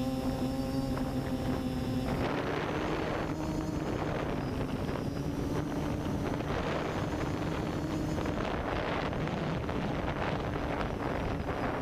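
FPV multirotor drone's motors and propellers running with a steady hum, heard from the onboard camera with heavy wind noise on the microphone. About two seconds in the hum rises slightly in pitch and the wind noise grows.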